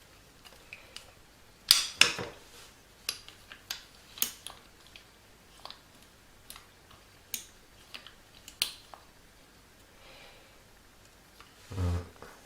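Irregular clicks and clatters of a door closer's small metal parts and springs being handled and fitted, the loudest two about two seconds in. A short low-pitched sound near the end.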